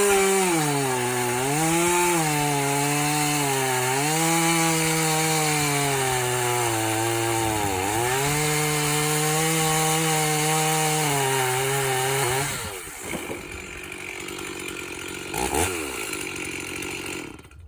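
Rebuilt Stihl 044 chainsaw with a 28-inch bar cutting into a log at high revs. The engine pitch sags several times as the chain takes the load and picks back up. About twelve seconds in, the engine winds down and the sound drops much lower.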